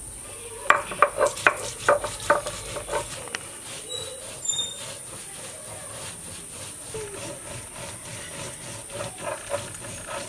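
Stone roller (nora) knocking and grinding on a stone slab (shil), crushing mustard seed, chilli and cumin for a spice paste: a quick run of sharp stone-on-stone knocks in the first few seconds, then a few softer knocks near the end.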